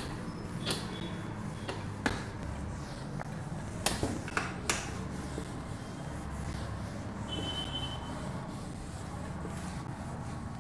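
Whiteboard duster wiping across a whiteboard, with several sharp clicks in the first half as the duster and the marker held with it knock against the board, over a steady low room hum.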